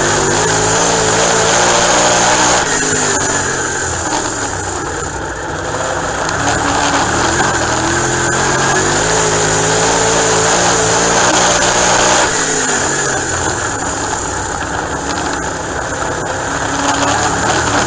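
Dirt-track race car's engine heard from inside the cockpit at racing speed, its note falling away about three seconds in and again about twelve seconds in, then climbing back as the driver lifts and gets back on the throttle around the oval.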